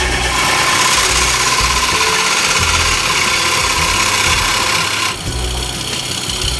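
Chisel cutting a wooden bowl blank spinning on a water-wheel-driven woodturning lathe: a loud steady scraping hiss over a low, uneven rumble from the lathe. The cutting hiss drops off abruptly about five seconds in, leaving the lower rumble.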